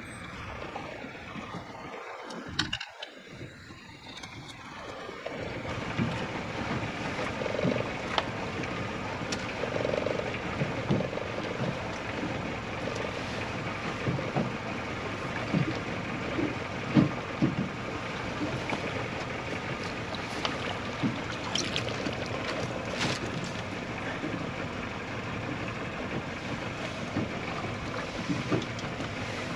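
Steady noise on a small fishing boat at sea, with a low hum and scattered knocks and clicks. It gets louder about five seconds in.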